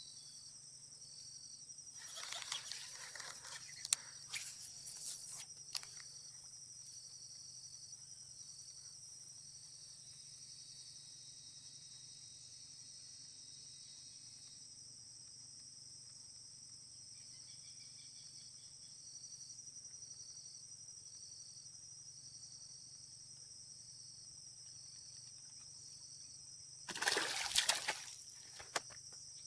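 Insects, crickets among them, chirring steadily, with water splashing at the surface: a burst of splashes about two seconds in and a louder splash near the end, where the water churns at the weedy edge as a fish strikes or the lure is pulled through.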